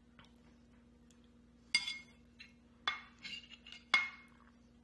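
Cutlery clinking against a plate: a few sharp, ringing clinks from about two seconds in, the last near the end.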